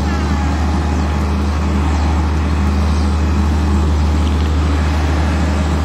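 An engine running steadily, a constant deep hum with a steady higher drone over rumbling noise.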